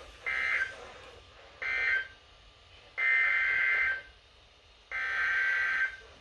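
Emergency Alert System SAME digital data bursts, a harsh buzzing warble: two short bursts ending one alert, then, after a pause, two longer bursts of about a second each that open the next alert's header.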